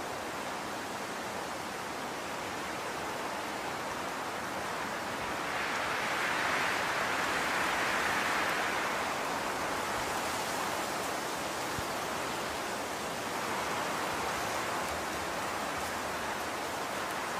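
Steady rushing hiss of background noise, swelling louder for a few seconds about six seconds in and again more mildly near the end.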